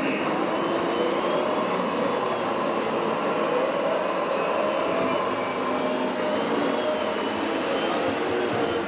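Radio-controlled model trucks and construction machines running: small electric motors whining, rising and falling in pitch over a steady hall din.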